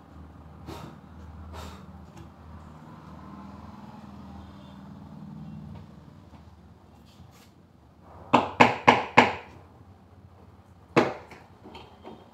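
Knocks on the wooden panels of a bed frame being fitted together: four quick sharp knocks about a third of a second apart, then a single knock a couple of seconds later.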